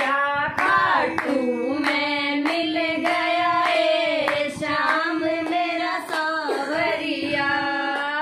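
Several women singing a Hindi devotional bhajan together, clapping their hands to a steady beat.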